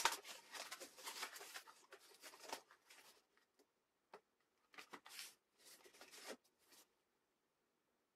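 Cardboard box flaps opened and a cardboard insert and paper manual handled: dry scraping and rustling, busiest in the first two seconds or so, then a few short rustles.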